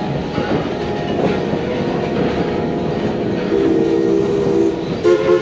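A train running on the track with a steady rattling rumble, and a locomotive whistle sounding a chord of several notes about halfway through, held for about a second, then a short toot near the end.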